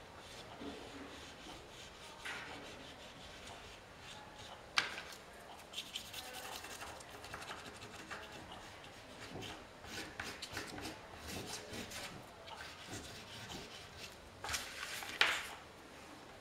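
Pastel stick scribbling and rubbing on paper in quick scratchy strokes, with a couple of sharp knocks about five seconds in and near the end.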